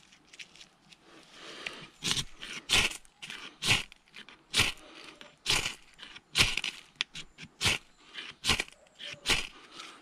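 Knife scraped hard down a ferro rod again and again to throw sparks onto tinder, each stroke a short sharp rasp. There are about nine strokes, roughly one a second, starting about two seconds in, with a few lighter scrapes before them.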